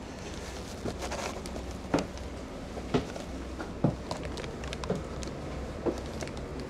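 Footsteps walking along a train carriage floor, about one step a second, over a steady low hum.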